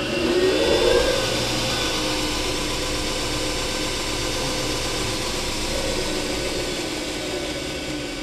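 Home-built belt grinder, its 2 hp AC motor driven by an AC Tech Lenze MC1000 variable-frequency drive, ramping up to speed with a rising whine in the first second. It then runs steadily with the belt spinning over the large contact wheel. Near the end its pitch starts to fall as the drive ramps it down to stop.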